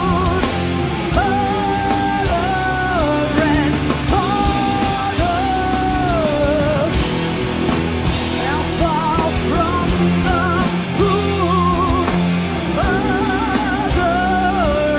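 Live progressive metal band playing at full volume: electric guitar, bass, drums and keyboards, with a melodic lead of long held notes that bend and slide.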